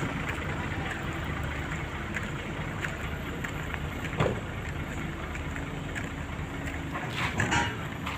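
Heavy road-paving machinery running steadily with an engine hum, with a brief sharp knock about four seconds in and a few clicks near the end.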